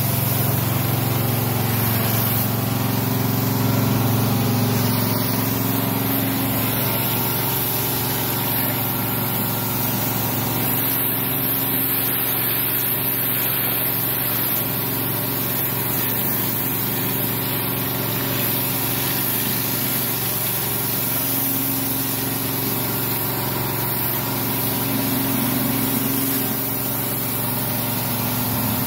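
Pressure washer running steadily: a constant motor hum under the hiss of water jets from a rotary surface cleaner being pushed over brick paving.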